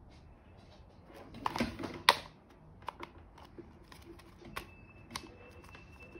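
Plastic clicks and knocks of a hot air styler's brush head being pushed onto the motor body and twisted into its slot, with a cluster of clicks and the loudest snap about two seconds in, then a few lighter clicks.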